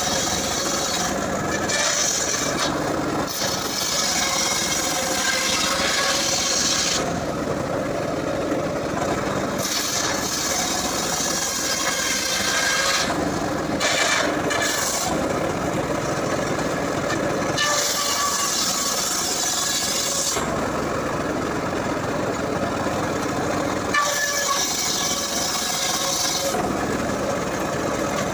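Homemade circular saw bench ripping a log lengthwise into planks, its large blade rasping loudly through the wood. The cut comes in several long passes, and the high rasp eases in the short gaps between them while the blade keeps spinning.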